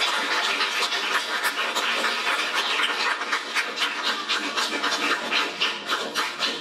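Audience applauding, dense and steady, thinning out near the end.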